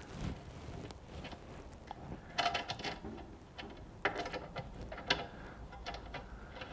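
Small metallic clicks and scrapes as a cable terminal nut is turned down by hand onto a power inverter's post, coming in a few short bursts, the busiest about two and a half seconds in.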